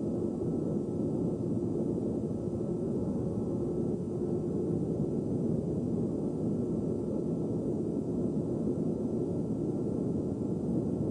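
Steady road and wind noise of a car driving along a winding road, heard from inside the car, with a faint steady hum underneath.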